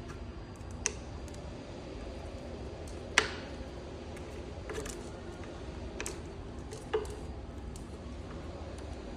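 A handful of sharp clicks and light knocks from tools and parts being handled, the loudest about three seconds in, over a steady low hum.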